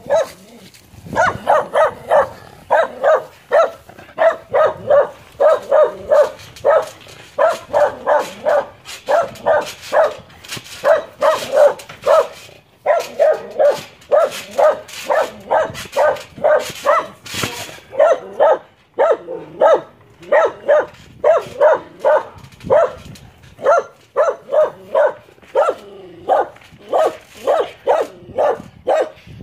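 Loud barking, about three quick barks a second in long unbroken runs, with a few short pauses.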